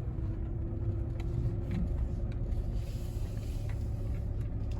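Road noise heard from inside a moving car: a steady low rumble of engine and tyres with a faint steady hum and a few light clicks.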